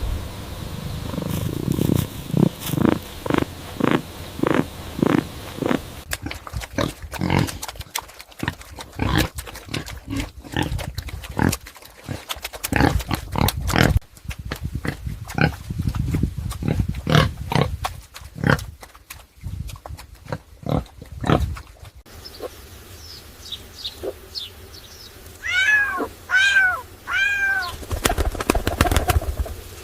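Farm animal calls in several short edited clips: fast runs of short, repeated calls at first, then a few brief rising-and-falling pitched calls near the end.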